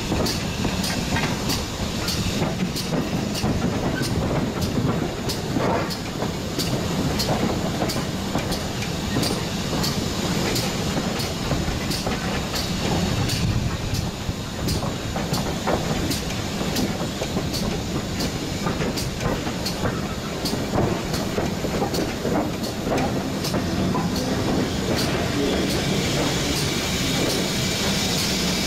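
GWR Hall-class 4-6-0 steam locomotive heard from its footplate while moving slowly: a steady running rumble, with the wheels clattering over rail joints and pointwork and a regular light ticking about two times a second. A hiss of steam rises near the end.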